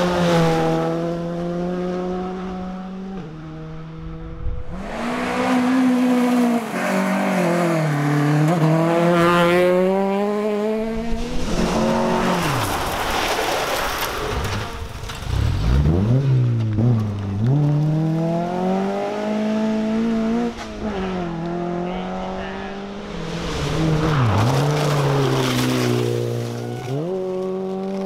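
Rally cars at full speed on a gravel stage, one after another, among them a modern Škoda Fabia rally car and a classic Volvo 140-series saloon. The engines rev hard, with the pitch falling and rising again several times as the drivers lift off and change gear, over a hiss of gravel and tyres.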